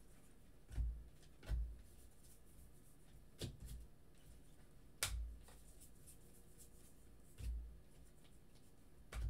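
Baseball trading cards being handled and flipped one by one from a stack: about six soft card flicks and dull knocks, one every second or two, the sharpest click about five seconds in, over quiet room tone.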